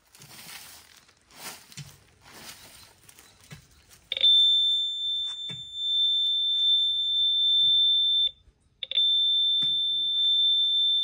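A few soft scraping or rustling strokes, then a metal detector sounds a continuous high-pitched tone about four seconds in, the signal of metal under the coil. The tone breaks off for about half a second a little past the middle and then resumes.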